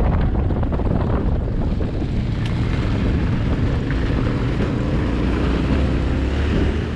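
Yamaha Ténéré 700's parallel-twin engine running under throttle, heard from on board with wind buffeting the microphone.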